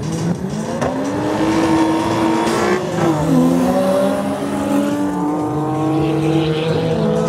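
Car engines accelerating hard down a drag strip. The pitch climbs, drops sharply at a gear change about three seconds in, then climbs again and drops at another shift near the end.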